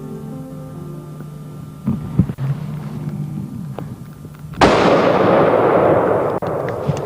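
Shotgun blasts over soft background music: a couple of sharp reports about two seconds in, then a much louder shot about four and a half seconds in that echoes away over a couple of seconds.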